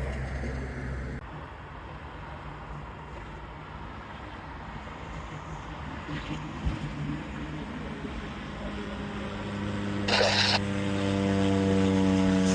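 Propeller airplane's engine drone building up over the last few seconds as the aircraft approaches, louder near the end and dropping slightly in pitch. A short burst of hiss comes about ten seconds in.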